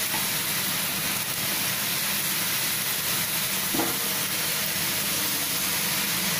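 Besan pakodas deep-frying in hot oil in a kadhai: a steady sizzle, with one short sharper sound just before four seconds in as more battered pieces are dropped into the oil.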